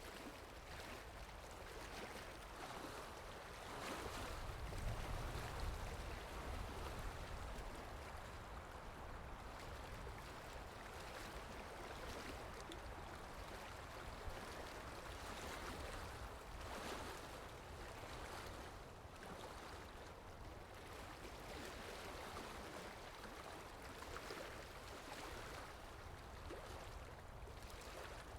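Faint, even wash of sea water and waves, swelling and easing, with a stronger low rumble about four to six seconds in.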